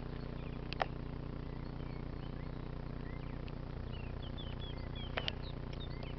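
Birds chirping in short rising and falling calls over a steady low hum. There are a sharp click a little under a second in and a double click about five seconds in.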